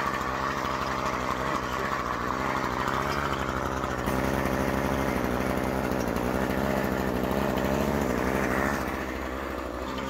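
Toro walk-behind lawn mower's engine running steadily, a little louder from about four seconds in and easing off slightly near the end.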